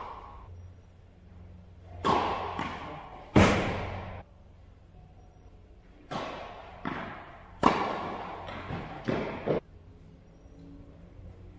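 Tennis ball being hit with rackets and bouncing on the court: a series of sharp pops in two clusters, each with a long echo off the metal walls of an indoor tennis hall.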